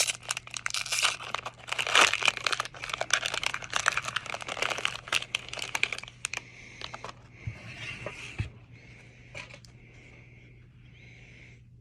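Hockey card pack wrapper being torn open and crinkled, a dense crackle for about six seconds, then only a few light handling clicks as the cards come out.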